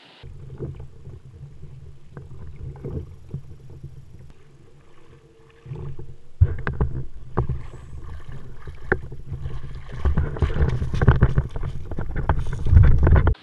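Muffled water splashing and knocking from a kayak being paddled, with a sudden thump about six and a half seconds in. Louder, denser knocks come near the end as the kayak is brought in to a gravel shore.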